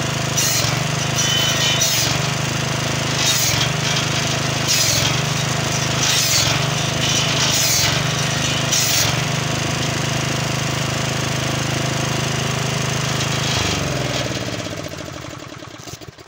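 Petrol-engined firewood circular saw running steadily, its blade cutting through black locust logs seven times, about one cut every second and a half. After the cuts stop, the engine is shut off near the end and runs down.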